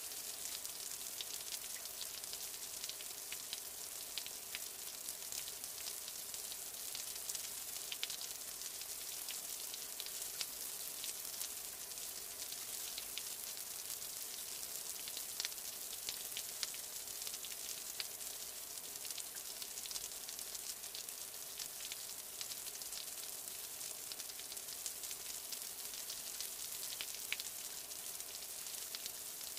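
Steady rain: an even, high hiss with many small drop ticks scattered through it.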